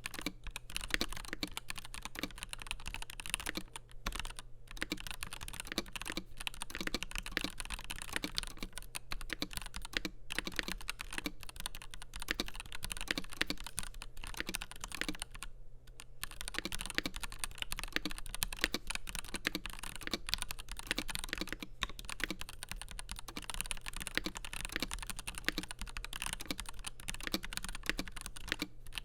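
Continuous fast typing on a FiiO KB3 mechanical keyboard with Gateron G Pro 3.0 Yellow linear switches, a stainless steel plate and translucent polycarbonate keycaps, with brief pauses about four and sixteen seconds in. A faint steady low hum runs underneath.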